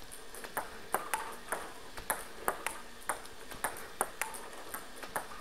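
Table tennis ball clicking in quick, regular succession, about three or four sharp clicks a second, as it bounces on the table and is pushed back off a rubber-faced paddle in forehand push practice.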